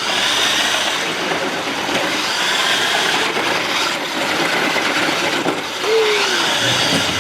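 New Bright 1/8 scale RC Jeep Wrangler's four electric drive motors and gearboxes running as it drives, a steady gritty whirring.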